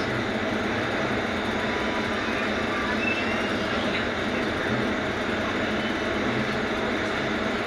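Steady din of engines and traffic in a congested, crawling road jam: a continuous even rumble and hiss with no sudden sounds standing out.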